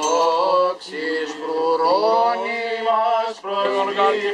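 Men singing Byzantine chant: a slow, ornamented melody with long held notes and a low steady drone note underneath, breaking off briefly a little after three seconds.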